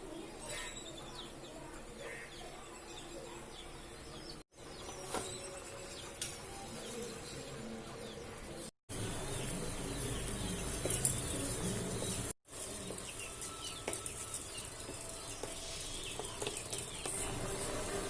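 Outdoor background with birds chirping now and then over a steady hiss. The sound is split into several short takes by abrupt cuts, with brief dropouts between them.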